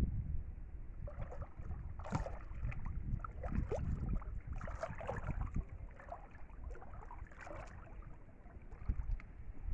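Shallow pond water sloshing and splashing irregularly around a person's legs as they wade, over a steady low rumble.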